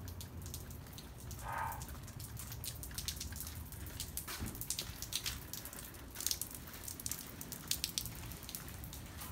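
Rain falling, with many separate sharp raindrop hits and drips close by. A brief higher-pitched sound comes about a second and a half in.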